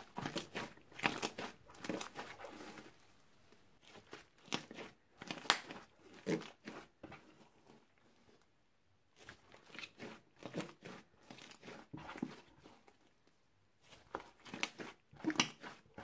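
Homemade clear slime mixed with shaving foam and nail polish being stretched, folded and pressed by hand, giving off bursts of small clicks and pops. The sound comes in four spells of handling with short pauses between them.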